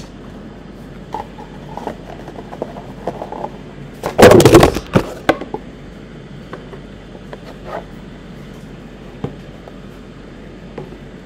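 Cardboard bundle box and its lid being handled and moved about on a playmat: light scattered handling clicks and taps, with one loud scraping rustle lasting just under a second about four seconds in.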